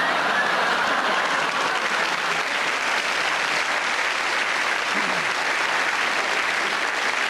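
Audience applauding steadily after a joke.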